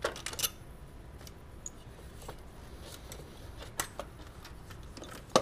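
Scattered light clicks and clinks of hand tools and intake parts being handled in a car engine bay, with a sharper knock near the end.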